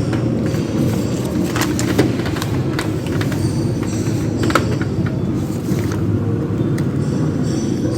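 Clicks and knocks of screws being worked out of an Epson L120 printer's plastic casing, a few sharp ones spread over several seconds, over a steady low background rumble.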